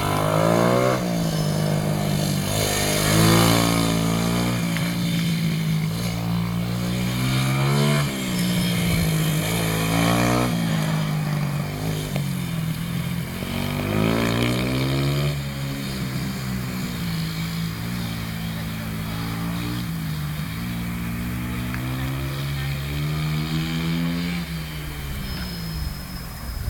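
Polini mini supermoto engine revving up and falling back again and again as it is ridden around a track, with a steadier stretch in the second half.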